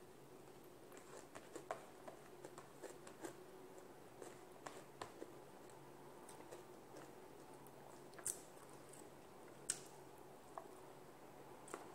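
Faint eating sounds: fingers mixing rice and food on a plate, with scattered small clicks and taps, a couple of sharper ones near the end, and quiet chewing over a low steady hum.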